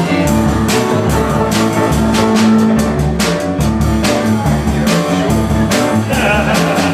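Rock band playing an instrumental passage between sung lines, with guitar over a steady drum beat.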